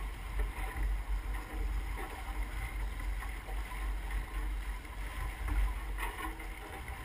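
Wind buffeting the microphone in an unsteady low rumble, over the rush of water along the hull of a sailboat under sail.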